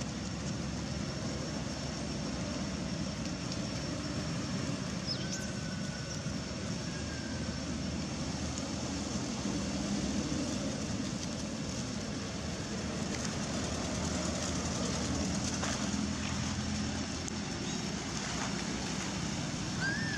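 Steady outdoor background rumble and hiss, with a few faint, short, high squeaks about five seconds in and again near the end.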